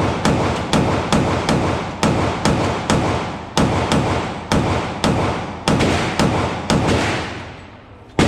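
Gun fired rapidly in a string of about seventeen shots, two to three a second, from a drum magazine, each shot sharp with a short echoing tail; the firing stops about seven seconds in.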